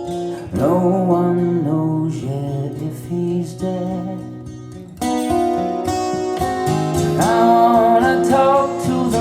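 Recorded music: an instrumental passage of a song led by acoustic guitar, with sustained pitched notes over it and a short lull about halfway through before the music swells again.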